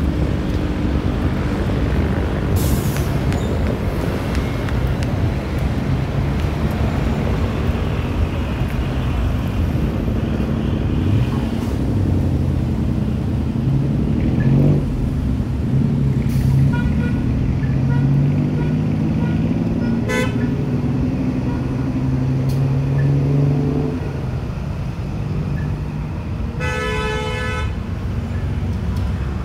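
Busy road traffic: vehicle engines running and passing, with several short horn toots and a longer horn blast near the end.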